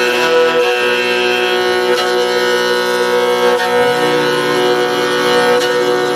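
Altai throat singing with a bowed fiddle: a steady, drone-like sound of many overtones, with a high, thin overtone tone held over it for about the first second and a half. A little before four seconds in, the low drone moves down in pitch.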